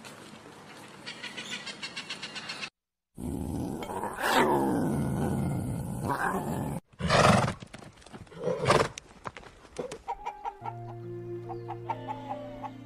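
Several animal calls in quick succession, cut together. The loudest and longest, about three seconds in, falls steadily in pitch. Soft background music with held notes comes in near the end.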